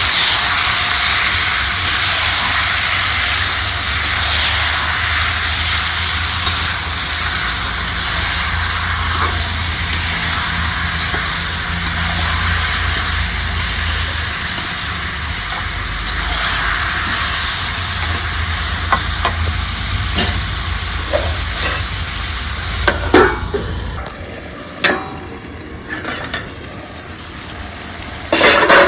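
Chicken pieces frying in hot oil in a pan, a loud steady sizzle. In the later part a utensil stirring the meat knocks and scrapes against the pan, several times and sometimes sharply. The sizzle drops quieter about two-thirds through.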